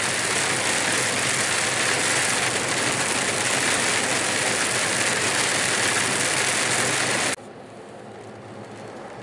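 Heavy rain hitting a truck cab's windscreen, together with the noise of the lorry driving on the wet motorway, as a loud, steady rushing. About seven seconds in it drops off abruptly to a much quieter level.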